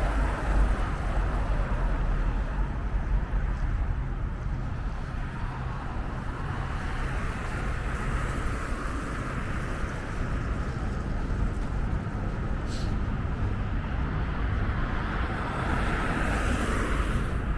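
Steady road traffic noise from passing cars, swelling near the end as a vehicle goes by.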